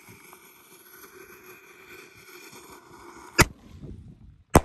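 Consumer artillery shell fired from an HDPE mortar tube: a faint hiss of the burning fuse, then a sharp bang of the lift charge about three and a half seconds in. A second sharp bang of the same loudness follows just over a second later, the shell bursting in the air.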